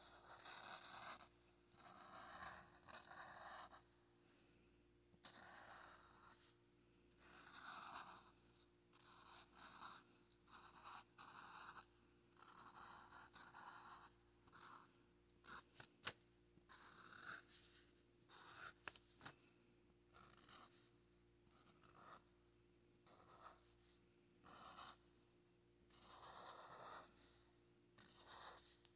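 Sharpie fine-point permanent marker drawing on paper: faint scratchy strokes, each lasting up to a second or so, with short pauses between. A few sharp ticks come about halfway through.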